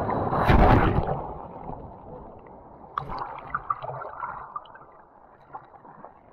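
A breaking ocean wave crashes over the camera about half a second in, then the sound is heard from underwater: muffled churning and gurgling of turbulent water with scattered bubble clicks and pops, fading quieter toward the end.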